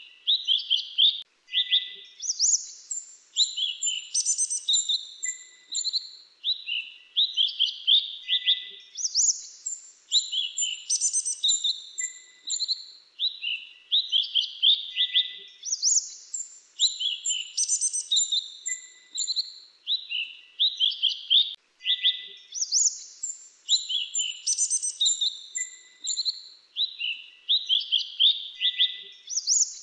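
Grey-chinned minivet song: quick, high chirps and short trills packed close together. The same phrase sequence repeats about every six and a half seconds, as a looped recording does.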